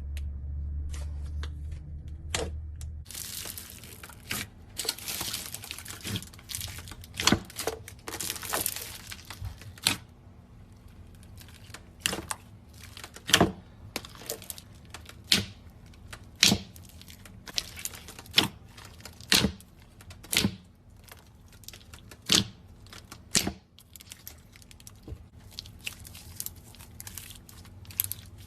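Slime being squeezed and stretched by hand: irregular crackling with sharp pops, about one every second or two. A low hum fades out about three seconds in.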